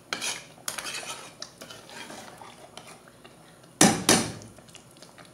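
Metal ladle stirring thick mutton gravy in an open pressure cooker pot, scraping and clinking against the pot's sides, with two loud knocks close together about four seconds in.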